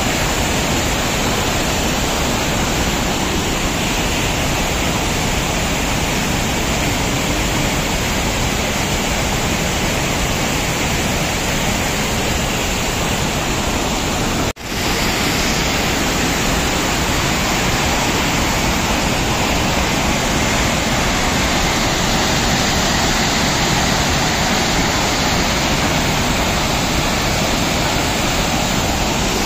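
Whitewater rapids of the Kaveri River rushing steadily over rocks, a loud continuous roar of water. It cuts out for an instant about halfway through, then resumes at once.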